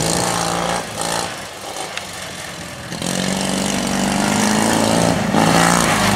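Racing lawn mower engines running hard on the track. The engine sound drops back for a couple of seconds, then swells louder again about three seconds in as the machines come closer.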